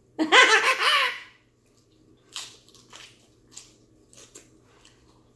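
A short laugh, then about half a dozen crisp crunches as a mouthful of lettuce wrapped around noodles is bitten into and chewed.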